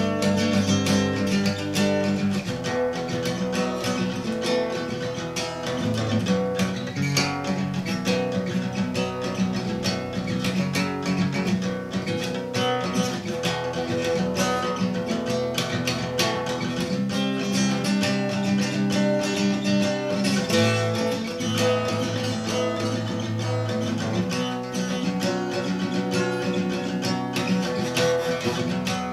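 Solo acoustic guitar playing chords, strummed in a quick, even rhythm.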